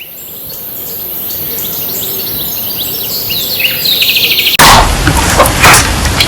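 Birds chirping and trilling, fading in, many short calls. About four and a half seconds in it cuts off abruptly into loud crackling, crunching noise in quick irregular strokes.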